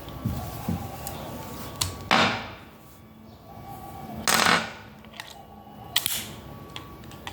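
Metal clicks and clacks of a .32 revolver being handled, with two louder clacks about two and four seconds in and lighter clicks between and after.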